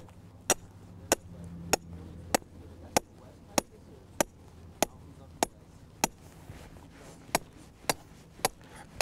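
Hammer striking the top of a 2-foot steel rebar stake, driving it through a wattle into the ground: a steady run of sharp metal-on-metal clinks, about one every 0.6 s, with a short pause about two-thirds of the way through.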